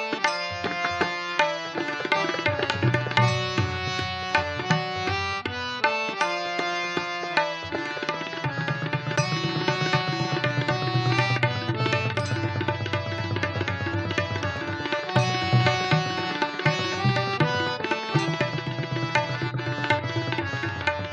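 Pakhwaj and tabla playing a fast solo duet over a steady harmonium melody. From about eight seconds in, the deep drum strokes come thick and fast in a dense roll.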